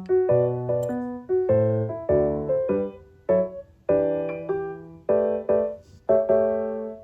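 Background piano music: gentle chords struck about every half second, each ringing and fading.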